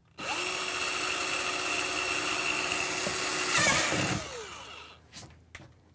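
Handheld power drill running steadily as its bit bores through a plastic tote lid. The cutting gets louder and rougher about three and a half seconds in, then the motor winds down with a falling pitch, followed by two light clicks.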